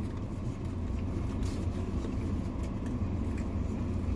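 Steady low rumble of a car engine idling, heard inside the cabin, with a few faint rustles and clicks.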